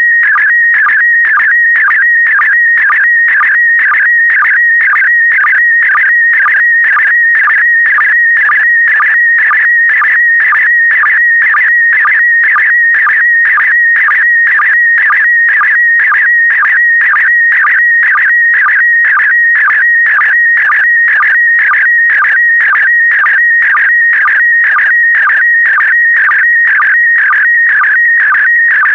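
Slow-scan television signal in PD120 mode: a loud, unbroken electronic warble around 2 kHz, with a short dip in pitch repeating about twice a second. Each dip is the sync pulse that begins a new pair of picture lines, so the sound is image data being sent line by line.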